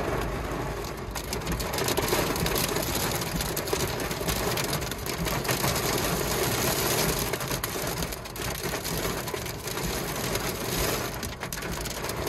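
Heavy thunderstorm downpour hammering on a car's roof and windshield, heard from inside the cabin as a dense, steady rush of countless drop impacts.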